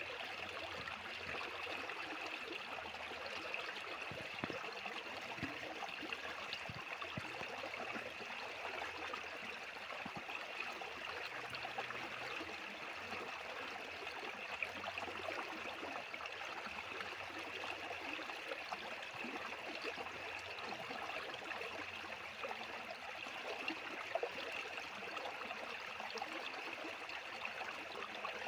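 Fast-flowing water rushing steadily, with small splashes and gurgles ticking through it.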